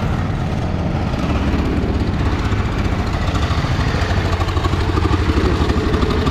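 Single-cylinder 14 hp diesel engine of a 1969 DT-14 tractor running steadily with a rapid, even beat.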